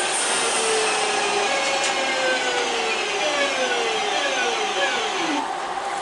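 Passenger train running past at speed and moving away, its rumble carrying a series of whining tones that fall in pitch one after another before the noise drops back to a steadier hiss.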